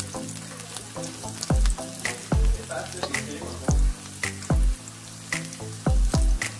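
Minced garlic sizzling in hot oil in a nonstick wok, with a wooden spatula stirring and scraping it and giving small clicks. Background music plays over it, and its deep booming beats, about one or two a second, are the loudest sounds.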